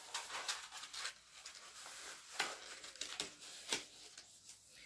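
Paper rustling and crinkling as sheets are handled, with a few irregular sharper crackles.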